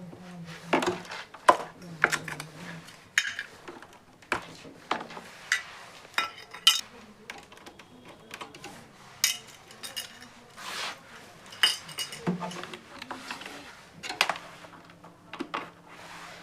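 Irregular metallic clinks, taps and scrapes of hand tools working on the refrigerator's copper tubing and filter drier.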